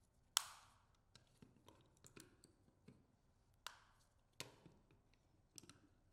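Sharp clicks and small taps of clamp hardware being handled and fitted, the hoop and latch going into the clamp base: one loud click about half a second in, two more a little past the middle, and faint taps between.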